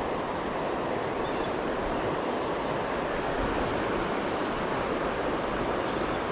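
Shallow, rocky mountain trout stream rushing steadily over its stony bed, a constant even noise of flowing water.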